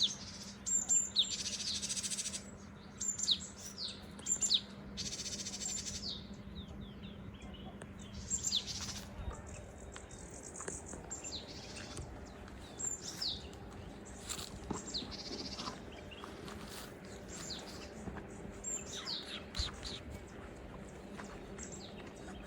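Wild birds chirping: many short, high chirps, each falling quickly in pitch, repeated throughout.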